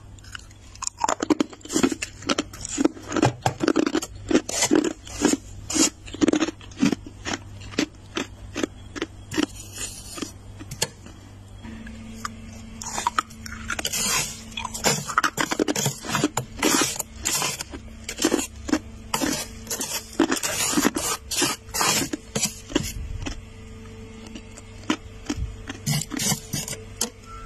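Thick, flaky freezer frost being scraped in quick repeated strokes, roughly two a second, with a crunchy rasp to each stroke.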